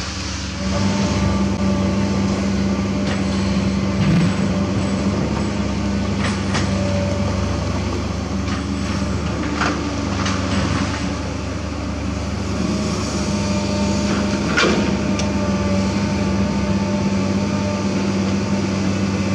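Komatsu PC200 excavator's diesel engine running steadily under load while it digs limestone, getting louder about a second in, with a few sharp knocks of rock against the bucket.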